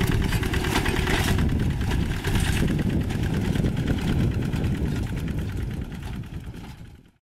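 Single-cylinder diesel engine of a two-wheel hand tractor running steadily with a rapid, even chugging as the tractor works through flooded paddy mud. The sound fades out near the end.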